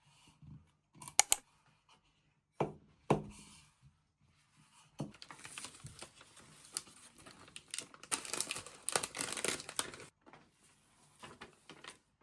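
Packaging being handled and opened by hand: a couple of sharp clicks and two knocks, then about five seconds of crinkling and tearing of paper or plastic wrapping.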